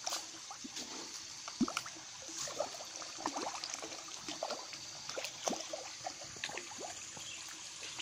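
Tilapia feeding at a pond surface, many small splashes and gulping slurps as they snatch floating feed pellets, several a second, with no steady rhythm.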